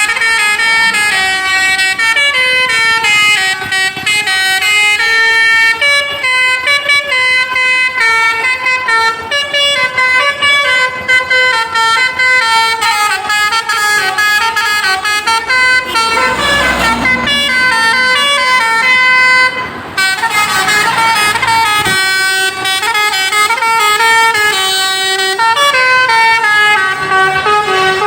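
Indonesian 'telolet basuri' multi-trumpet musical bus air horn playing a tune, note after note stepping up and down in pitch without a break. A short rush of noise comes about two-thirds of the way through.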